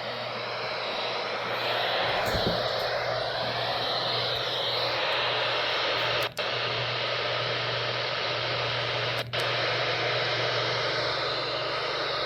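Weather radio receiver hissing with heavy static from a weak, poorly received NOAA Weather Radio signal, over a steady low hum. The hiss cuts out briefly twice, about six and nine seconds in.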